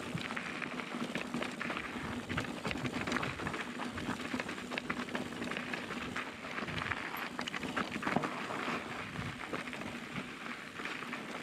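Mountain bike rolling over rocky, gravelly dirt singletrack: knobby tyres crunching on loose stones and the bike rattling, with a constant patter of small clicks and knocks. A faint steady hum runs underneath.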